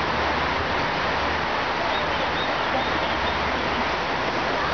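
Steady rushing noise with no rhythm or pitched sound in it.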